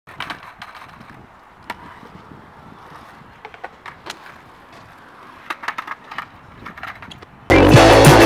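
Scattered sharp clacks and knocks of a skateboard being handled and tapped on concrete, over a faint outdoor background. Near the end, loud music cuts in suddenly and drowns it out.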